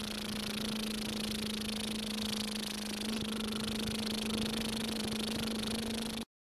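Steady hiss with a low, even hum underneath, cutting off suddenly near the end.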